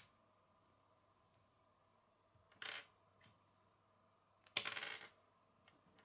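Small plastic Lego pieces being handled and fitted together: a sharp click at the start, a short clatter about two and a half seconds in, and a longer rattle of quick clicks about four and a half seconds in.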